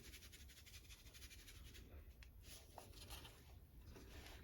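Near silence: faint room tone, with a couple of faint light clicks or scrapes about two to three seconds in.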